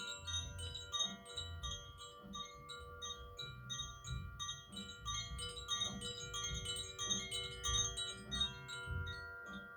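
Koshi chimes, bamboo-bodied wind chimes with tuned metal rods, being gently swung and shaken. They give a dense, continuous tinkling of many overlapping ringing notes, with new strikes several times a second.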